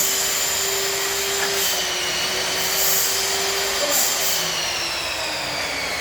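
Electric power tool motor running steadily with a high whine whose pitch sags slightly over the seconds.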